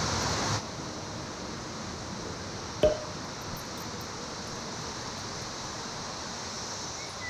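Steady outdoor background hiss, a little louder for the first half second, then even. One sharp metallic clink about three seconds in.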